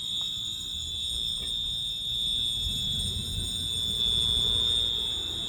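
Building fire alarm sounding without a break: a steady, high-pitched ringing tone over a low rumble.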